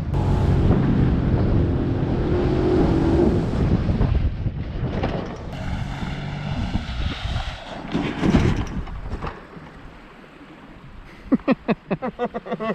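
Jet ski engine running under heavy wind noise on the microphone, its note rising during the first few seconds and then easing off. Near the end comes a quick run of sharp pulses, about six a second.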